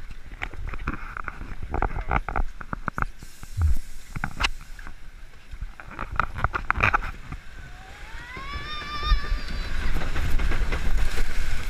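Flume-ride boat rumbling and clattering along its water trough, with a run of sharp knocks and clunks. About eight seconds in, a rider lets out a long cry that rises in pitch and is held as the boat picks up speed.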